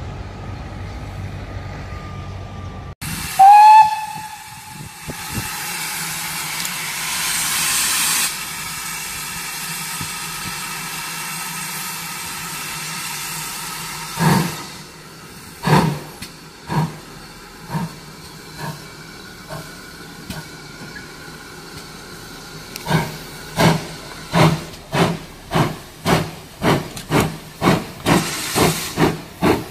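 Steam locomotive gives one short, loud whistle, followed by a hiss of steam. Then it sets off: its exhaust chuffs start slow and quicken to about two or three a second as it gathers speed.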